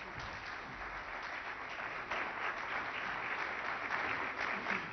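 Theatre audience applauding, a dense patter of many hands clapping that swells about two seconds in.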